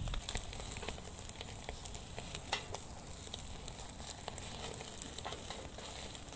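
Lamb kebab skewers sizzling over a charcoal fire in a mangal grill: a steady hiss dotted with small crackles and pops, one sharper pop about two and a half seconds in.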